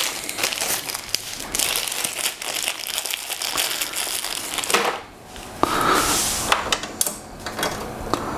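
Small plastic bag of screws crinkling and rustling as it is handled and opened, with many short sharp clicks.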